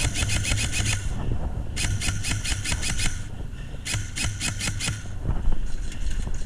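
Airsoft rifle firing three bursts of rapid full-auto shots, each about a second long, with short pauses between.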